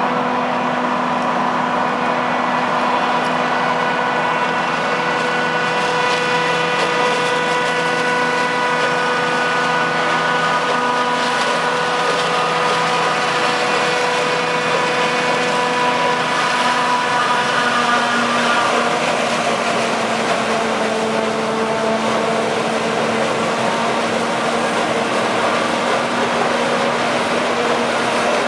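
Claas Jaguar 970 self-propelled forage harvester running under load, chopping standing maize with an Orbis rotary header. A steady machine din with several held whining tones, which step down slightly in pitch about two-thirds of the way through.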